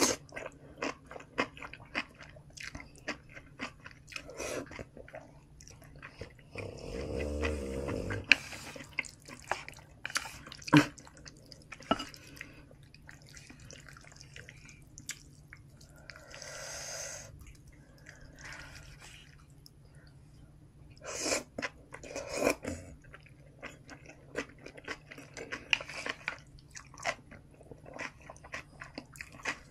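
Close-miked chewing of kimchi noodles and dumplings, with many wet mouth clicks scattered throughout. A low burp lasting about a second and a half comes around seven seconds in.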